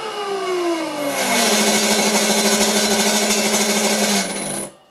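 Three-phase electric motor run from a variable frequency drive, its whine falling in pitch as the drive ramps down, then holding a steady lower whine under a loud rushing hiss. It stops abruptly near the end, at about 20 Hz, the speed where this drive has been cutting out with an error 6.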